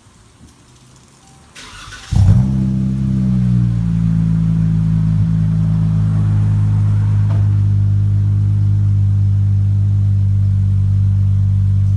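Dodge Challenger V6 with its resonators deleted and Magnaflow mufflers being cold-started: a brief crank about a second and a half in, then the engine catches with a short rise in revs and settles into a steady, loud idle through the exhaust.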